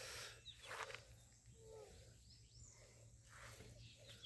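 Near silence: faint outdoor farmyard ambience with a few short, faint chirps.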